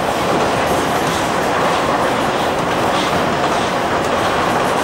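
A CNR Changchun DKZ16 subway train running steadily through a tunnel, heard from inside the car: an even, loud noise of wheels on rail and tunnel echo, with a few faint ticks.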